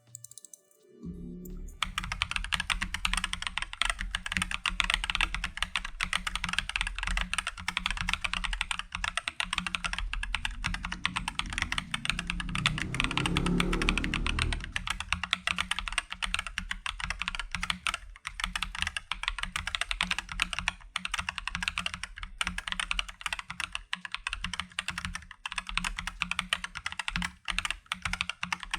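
Typing on an AKKO 3087 RF mechanical keyboard: a rapid, continuous run of key clacks that starts about two seconds in, growing fuller and louder for a couple of seconds around the middle.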